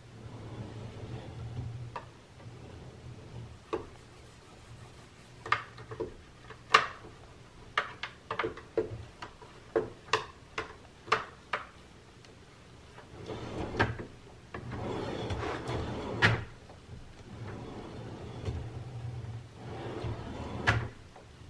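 A kitchen drawer on metal ball-bearing slides being pulled open and pushed shut several times, each sliding run ending in a knock. In the middle comes a run of about ten sharp clicks and knocks.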